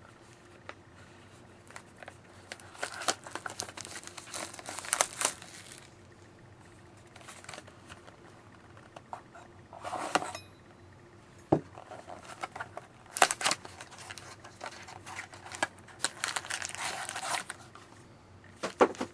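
Plastic wrapping crinkling and tearing as a box of hockey cards is unwrapped and opened. It comes in several irregular bursts, with a few sharp knocks between them.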